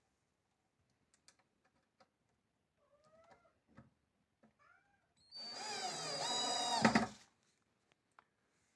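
Cordless drill run once for under two seconds, about five seconds in, its motor whine sagging in pitch near the end as it comes under load. Before it, only a few faint light ticks.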